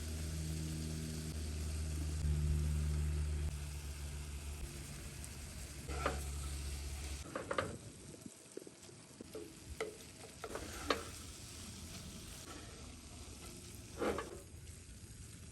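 Food sizzling in a frying pan, with a low steady hum for the first seven seconds or so. From about six seconds in there are several sharp clicks and knocks.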